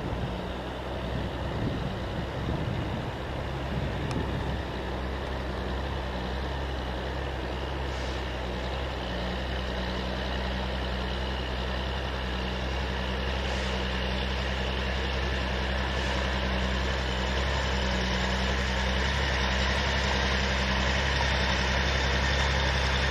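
Loaded logging truck's diesel engine running steadily under load, with some uneven low rumbling in the first few seconds, growing gradually louder.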